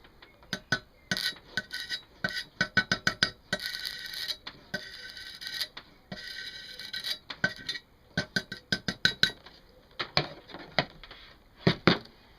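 Stick-welding rod scratched against a thick steel workpiece on a single 12-volt car battery through jump leads: sharp crackles and snaps of sparking, with three brief stretches of buzzing sputter, but the arc never holds. One battery gives too little voltage to weld.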